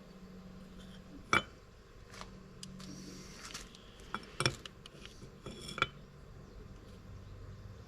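Metal parts and tools being handled: a few sharp clinks and knocks, the loudest about a second and a half in, with a cluster of others between about four and six seconds in.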